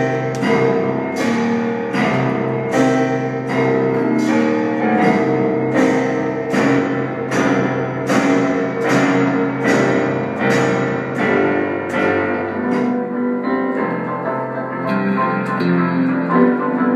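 Live improvised instrumental music led by piano: a repeated struck note or chord a little under twice a second over a held low note, with the repeated strikes stopping about two-thirds of the way through while the sustained notes carry on.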